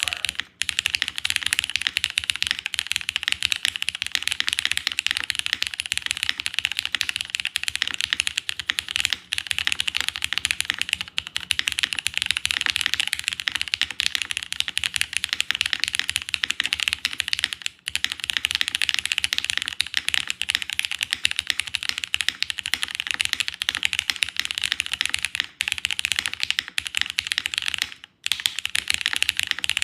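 Fast, continuous typing on a Wuque Studio Paper80 mechanical keyboard, a steady stream of key clacks with a few brief pauses.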